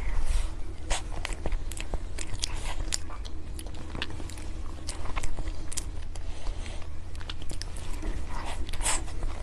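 Close-miked biting and chewing of chocolate dessert, with many sharp crunchy clicks and crackles scattered throughout.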